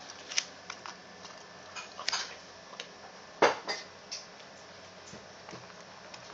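Irregular clicks and light knocks of small die-cast toy cars being picked up, pushed and set down by hand, the loudest knock about three and a half seconds in.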